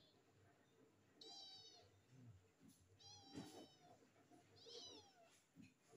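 Young stray kitten mewing, about three short, thin, high-pitched cries, while it is held in a towel and its sore eye is wiped.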